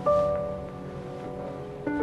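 Background score of soft piano chords, each struck and left to ring out and fade; a new chord comes in right at the start and another near the end.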